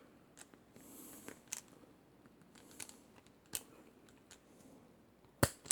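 Capri self-adjusting wire stripper working the insulation off old two-wire extension cord: faint small clicks and rustling, then one sharp snap near the end as the insulation pulls free.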